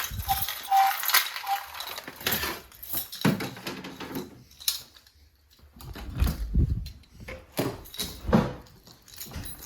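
An irregular string of clicks, rattles and knocks from things being handled, with a few low thumps about six and eight seconds in.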